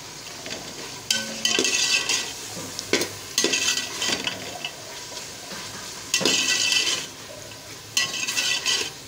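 Slotted metal spatula stirring chicken and garlic paste in a hot, oily metal pot: about four bursts of scraping and sizzling with clinks of metal on metal, over a steady frying sizzle.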